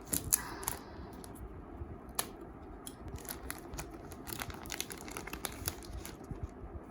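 Parcel packaging being unwrapped by hand: a run of short crinkling crackles and taps, sharpest in the first second.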